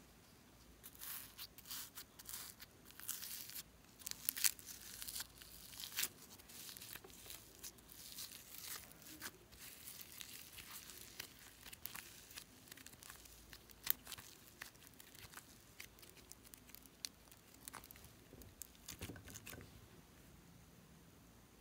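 Pink glitter slime being pulled and peeled by fingers out of a pineapple-shaped plastic container: a run of soft, sticky crackles and clicks that thins out near the end.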